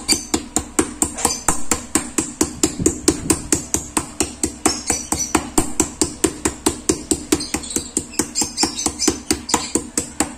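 Metal meat tenderizer mallet pounding a raw chicken breast on a plastic cutting board, steady rapid strikes at about four to five a second, flattening and tenderizing the meat.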